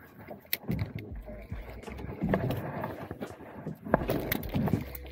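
Irregular knocks, clicks and light rattling of fishing tackle being handled against a small boat's hull.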